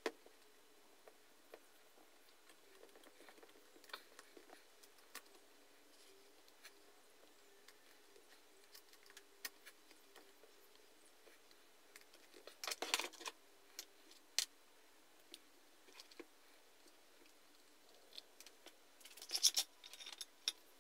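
Faint clicks and scrapes of a screwdriver and metal parts as the bench grinder's motor housing is screwed together, with louder clattering about two-thirds of the way through and again near the end.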